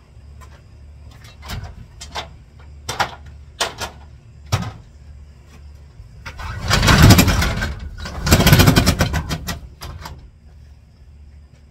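Sheet-steel roll-up door being pushed open by hand: a few sharp knocks and clicks, then two loud rattling runs as the corrugated slats roll up into the coil.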